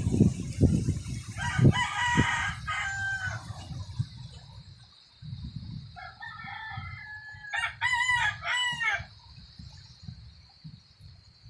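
A rooster crowing twice, once early and again, longer, in the second half. Under it run low rumbling thumps, loudest at the start.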